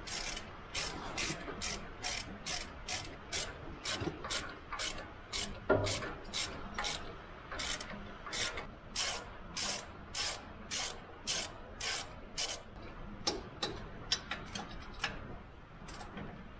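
Hand ratchet wrench clicking in even back-strokes, a little over two a second, as the cylinder head bolts go back down on a lawn mower engine over new head gaskets. Near the end the strokes come shorter and quicker.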